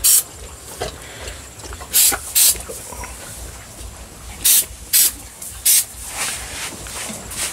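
Aerosol can of purple wound spray hissing in about six short bursts as it is sprayed onto a sow's sore ear to keep the flies off.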